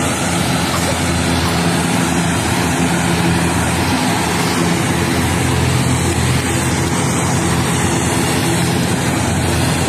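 Loud, steady engine drone with a constant low hum.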